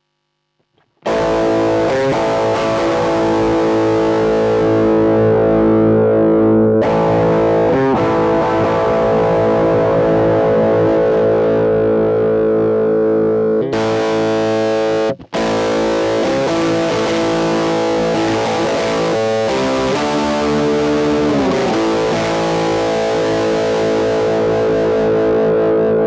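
Electric guitar played through a Boss Dyna Drive DN-2 overdrive pedal: distorted chords ringing out, starting about a second in. The chords change a few times, cut out briefly about halfway, and bend in pitch later on.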